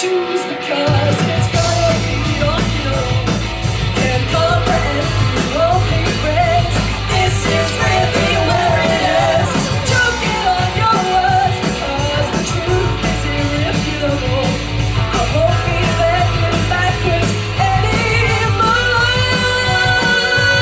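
Pop-punk band playing live, with a sung vocal over electric guitar, bass and drums keeping a steady beat. The bass and drums drop out briefly at the start and come back in about a second in.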